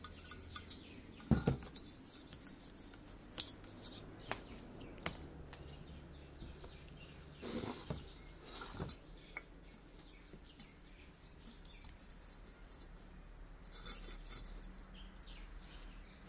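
Metal parts of an old kerosene lamp clinking and tapping as they are handled and scrubbed with a small brush: scattered light clicks and knocks, a few sharper ones, and short scraping rustles about halfway through and near the end.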